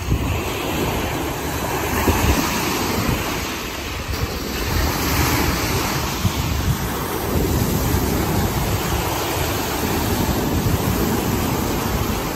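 Small Lake Erie waves breaking and washing up on a sand-and-pebble shore, a steady rush of surf that swells and eases every few seconds. Wind rumbles on the microphone.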